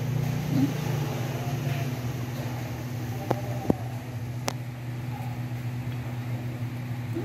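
A steady low machine hum, with three short sharp clicks a little past the middle.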